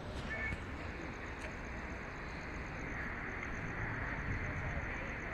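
Steady street ambience at night: a low background rumble with a faint, rapidly pulsing high tone throughout, and a brief high chirp about half a second in.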